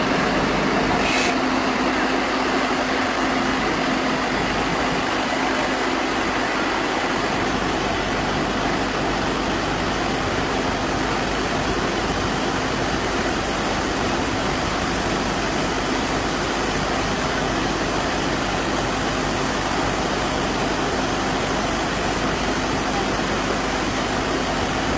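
Stationary baler-wrapper machine running with a steady, even mechanical noise and a constant low hum, with one short click about a second in.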